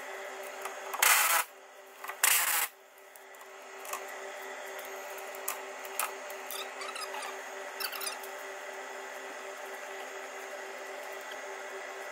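Two short, loud bursts of tool noise about a second apart, then scattered light clicks and taps of hand tools on the rear leaf spring and U-bolt fittings over a steady hum.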